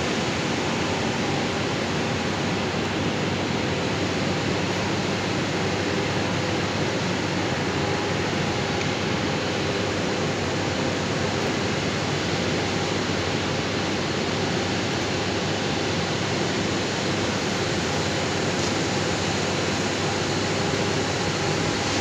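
A steady, even rushing hiss that holds the same level throughout, with no knocks or tones standing out.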